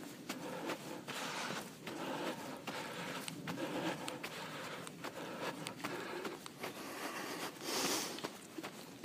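Footsteps in snow on a forest trail, a regular beat about every three-quarters of a second, with clothing and handling rustle against the microphone. A brief hiss comes about eight seconds in.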